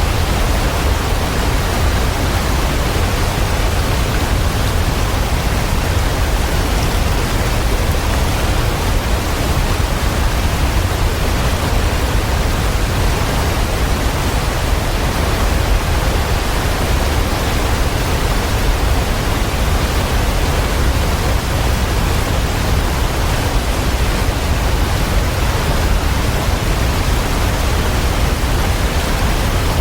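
Waterfall: a steady, unbroken rush of falling water, heaviest in the low rumble, with no changes or separate splashes.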